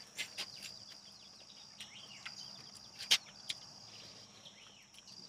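Faint outdoor insect drone, a steady high-pitched buzz, with scattered small chirps over it and a few sharp clicks, the loudest about three seconds in.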